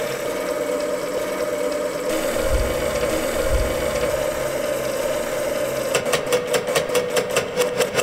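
ITT rotary telephone dial being worked, giving a steady mechanical whir with a couple of low knocks. From about six seconds in comes a rapid, even run of clicks, about ten a second: the dial spinning back and sending its pulses.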